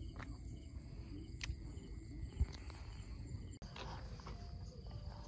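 Faint outdoor ambience: insects chirring with thin, steady high tones over a low, even rumble. There is a small knock about two and a half seconds in, and a short dropout a second later.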